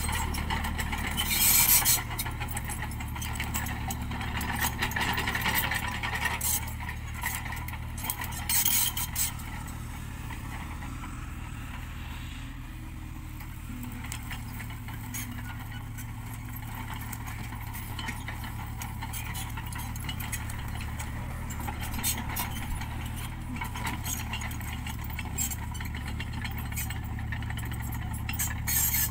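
Tata Hitachi Zaxis 33U mini excavator's diesel engine running steadily under load as it levels soil with its dozer blade, with rattling and scraping from the tracks and blade. The rattling is louder about two seconds in and again around nine seconds.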